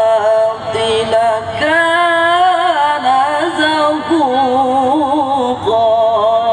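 A young male qari reciting the Quran into a microphone in the melodic mujawwad style, in a high voice. He holds long, drawn-out notes with wavering ornaments, and the pitch steps up and down between phrases.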